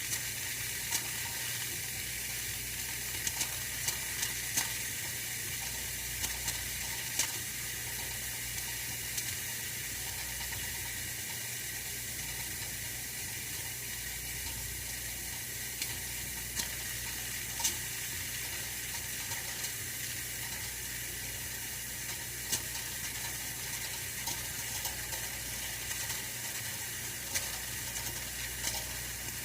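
Oil-filled radiator heater running: a steady hiss over a low hum, with irregular small ticks and crackles scattered throughout.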